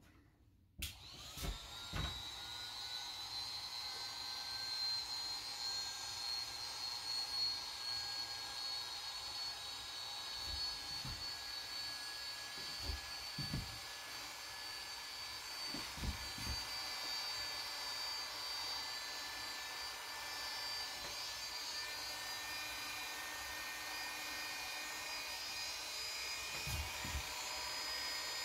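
Corded electric hair clipper switched on about a second in, its motor whine rising briefly as it gets up to speed, then running steadily while it trims the neckline, with a few low knocks from handling.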